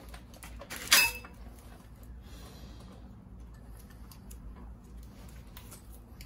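Metal parts of a trailing arm and bearing press kit knocking together as they are handled: one sharp metallic clank with a short ring about a second in, then light clicks and taps.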